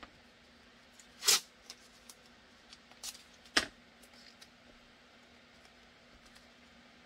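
Blue painter's tape being pulled and torn by hand: a few short tearing sounds, the loudest about a second in and another sharp one a little past three and a half seconds, with light clicks and rustles between them over a faint steady hum.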